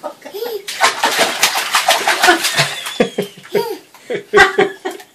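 Toddlers laughing, squealing and babbling in the bathtub, with splashing of bath water.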